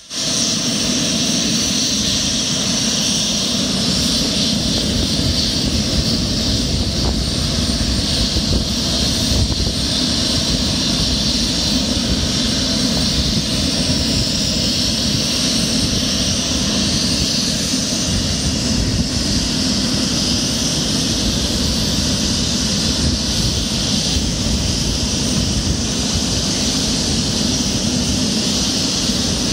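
Convair 580's Allison turboprop engines running steadily on the ground, a constant high turbine whine over a low rumble.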